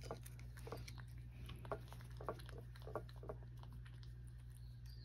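Domestic cat licking lickable treat paste from a small dish: soft, wet licking clicks, irregular and about two a second, over a faint steady low hum.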